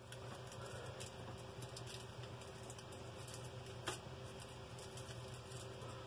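Large kitchen knife cutting slits into small whole trout on a foil-lined tray: faint scattered clicks and crunches as the blade goes through skin and bone and touches the foil, with one sharper click about four seconds in, over a low steady hum.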